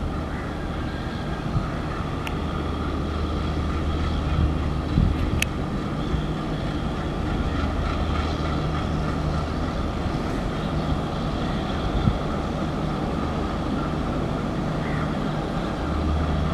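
Diesel locomotive engine running with a steady low drone as it hauls a passenger train slowly toward the listener, getting slightly louder. A few light clicks and knocks can be heard.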